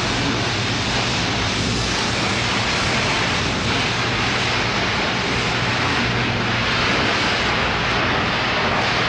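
Steady roar of flames in a steelworks furnace melting scrap steel, with a low hum underneath.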